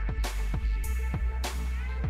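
Background electronic music with a steady drum beat and deep bass.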